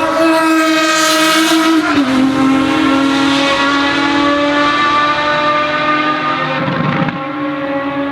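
Ferrari FXX Evoluzione's V12 engine running hard and loud at high revs. Its pitch drops sharply about two seconds in, then climbs slowly and dips again near the end.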